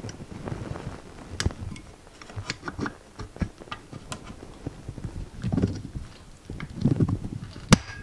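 A clutch cable being worked into a frame-mounted cable holder by hand. Scattered small clicks and taps alternate with rubbing, and one sharp click comes near the end.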